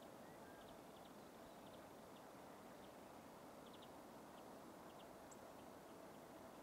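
Near silence: faint steady outdoor hiss, with scattered soft high ticks throughout.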